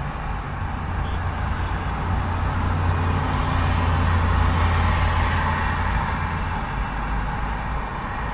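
Busy urban road traffic, cars and heavier vehicles going by. The rumble and tyre noise swell to a peak about four to five seconds in, as one vehicle passes close, then ease back.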